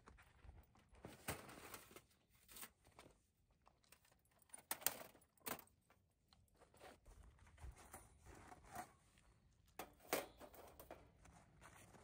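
Faint, irregular rustling and crinkling with scattered small clicks and knocks, the loudest about five seconds in: things being handled.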